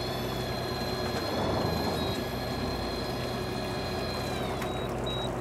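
Shimano ForceMaster 2000MK electric reel's motor whining steadily as it winds in line on a hooked red sea bream, its pitch dropping slightly near the end, over the steady hum of the boat's engine.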